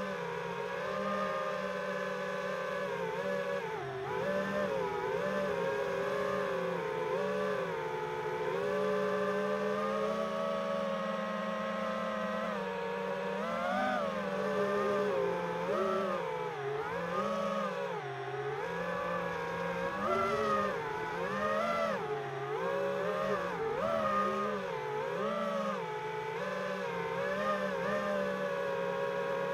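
5-inch FPV freestyle quadcopter's brushless motors and propellers whining, the pitch constantly rising and falling as the throttle is worked through turns and climbs.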